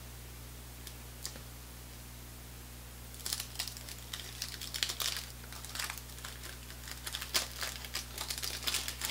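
The paper wrapper of a 1988 Topps Big Baseball card pack being torn open and crinkled by hand, a dense run of crackles starting about three seconds in.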